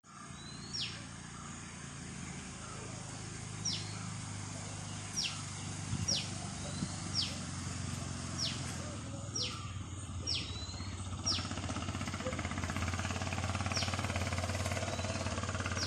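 A bird giving short, sharp calls that sweep down in pitch, about a dozen times at irregular intervals, over a steady low rumble.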